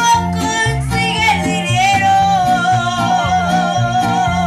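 A child singing a Mexican ranchera-style song into a microphone over guitar accompaniment, holding long notes with a wavering vibrato.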